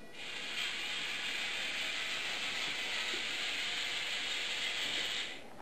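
Small electric gear motors and plastic K'Nex gears of a remote-controlled robot base running as it drives across the floor: a steady, hissy whir that starts just after the beginning and stops about five seconds in.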